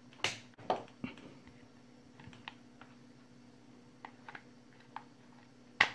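Light clicks and knocks of a white plastic mains plug and socket being handled, with a sharper, louder click near the end. A faint steady low hum runs underneath.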